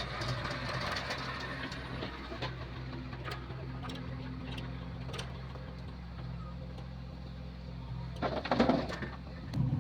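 Diesel engine running steadily at low revs, with a brief louder burst of noise about eight seconds in.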